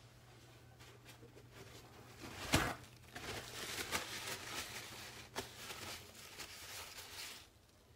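A sharp thump about two and a half seconds in, then several seconds of paper towel rustling and crumpling as wet hands are rubbed dry with it.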